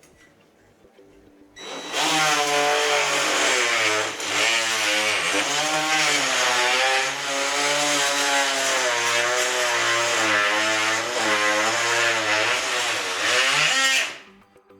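Ryobi 18V ONE+ oscillating multi-tool cutting into a painted wooden door frame. It starts about a second and a half in, buzzes continuously with its pitch wavering as the blade is pressed in, and stops near the end. The friction is heating the paint and melting it onto the blade.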